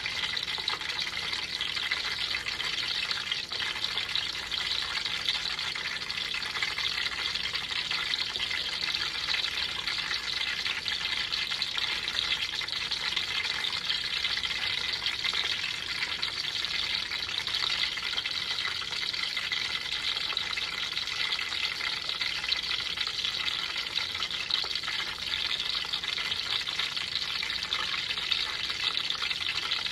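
Hot cooking oil sizzling and crackling steadily in a frying pan.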